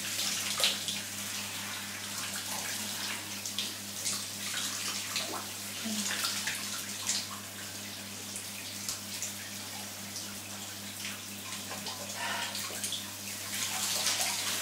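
Shower running: a steady spray of water, with a few faint brief sounds over it.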